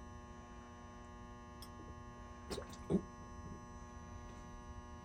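Steady electrical hum made of many fixed tones, with a few light knocks and clicks about halfway through as fuel-filter parts are handled.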